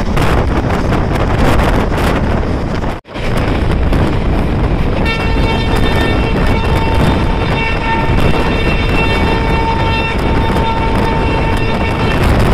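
Rushing wind and running noise of a moving train, broken by a short dropout about three seconds in. From about five seconds in, a train horn sounds one long, steady-pitched blast.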